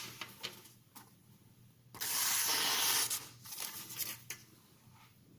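A steel knife blade scraping across an oiled Norton India Medium oilstone: one loud, hissing stroke lasting about a second, about two seconds in, with a few small clicks and lighter scrapes around it.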